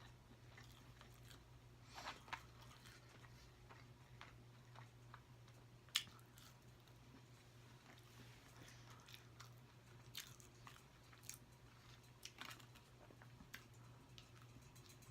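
A person quietly chewing and biting food, with scattered wet mouth clicks and a sharp click about six seconds in, over a faint low hum.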